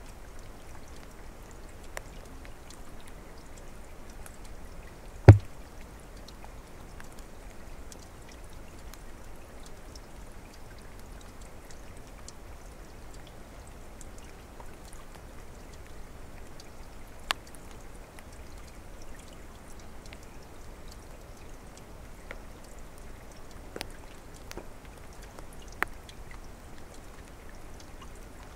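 Small stream trickling and splashing, a steady wash of water with scattered sharp drips and plops. A single sharp thump, the loudest sound, about five seconds in, with smaller clicks later on.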